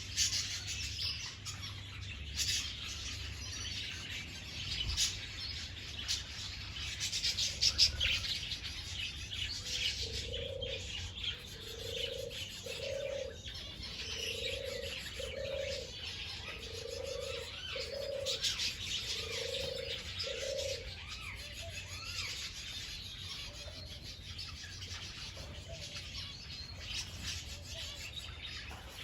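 A crowd of small birds chirping without a break, and from about a third of the way in a dove cooing a run of low notes, mostly in pairs, that stops about two-thirds of the way through.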